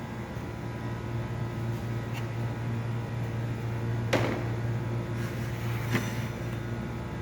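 A few light clicks and knocks of a laptop's case and parts being handled, the loudest about four seconds in, over a steady low hum.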